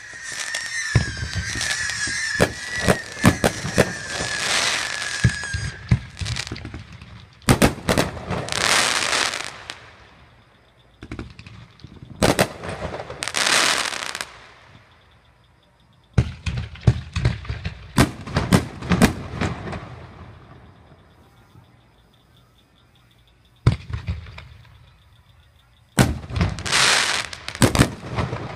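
Fireworks going off in volleys of sharp bangs and crackling hiss, with a wavering whistle over the first several seconds and quieter gaps between bursts.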